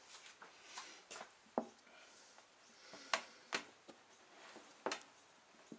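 Faint rustle of a shop rag and a few sharp little metallic clicks as a forged piston and connecting rod are handled and a wrist-pin snap ring is worked into the pin bore.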